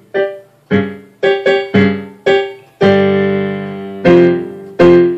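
Digital piano with a piano voice, played with both hands in chords. A quick run of short, detached chords gives way, about three seconds in, to three longer and louder chords that ring and fade.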